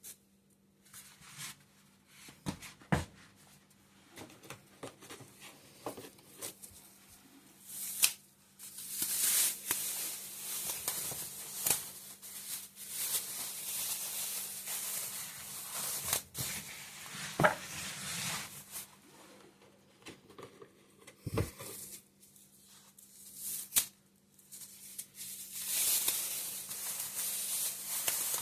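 The crisp crust of a sourdough loaf crackling and tearing as it is handled, in long crackly stretches broken by a few sharp cracks.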